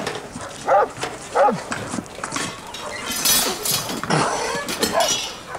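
A dog barking, with single barks about a second in and again half a second later. A brief rustling noise follows in the middle.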